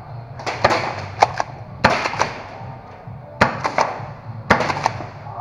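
Gas airsoft gunfire: sharp cracks in quick clusters of two or three, about five bursts.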